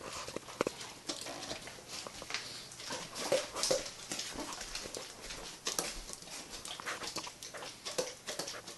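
A dog, its muzzle coated in flour, making a quick run of short clicking noises with its mouth and nose, with two brief whines about three and a half seconds in.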